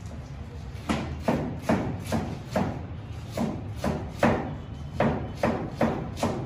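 Chef's knife chopping cabbage on a plastic cutting board: a regular run of knocks, about two to three a second, starting about a second in.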